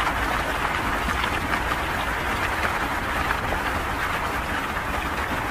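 Steady roar of fast-flowing floodwater rushing through a street.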